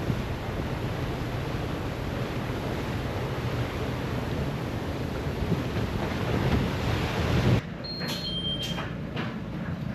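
Wind buffeting the microphone over the rushing noise of a rough sea. It cuts off abruptly near the end to a quieter background with a few sharp clicks and two short high beeps.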